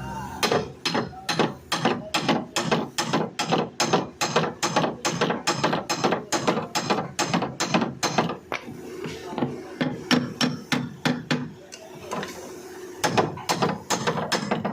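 Rapid hammer blows on a car's steel body panel, knocking out a dent at about three to four strikes a second. The blows thin out partway through, then pick up again near the end.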